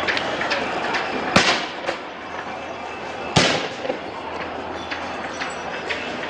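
Two loud, sharp bangs about two seconds apart, each trailing off in a short echo, with a few fainter pops, over a steady street din during a riot with tear gas.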